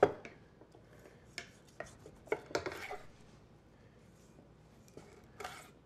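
A chef's knife slicing through a seared, seed-crusted tuna loin on a wooden cutting board: a few short scraping strokes and light taps on the board. There is a sharp knock at the very start.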